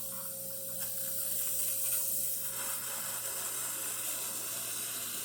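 Breville Barista espresso machine dispensing hot water: a steady hiss of water and steam under high pressure, over a steady hum. The pressure is high because the machine's system is full of steam.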